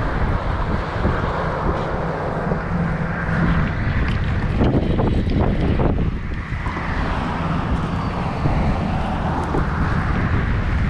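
Wind buffeting the microphone, mixed with the steady hum of traffic on the highway bridge.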